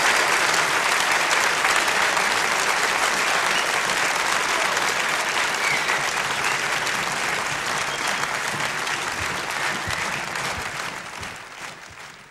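Concert audience applauding, a dense steady clapping that fades out over the last couple of seconds.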